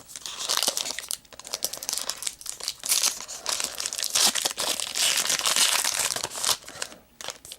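Crinkling and rustling of a trading-card pack's wrapper being handled and torn open, with quick crackles throughout.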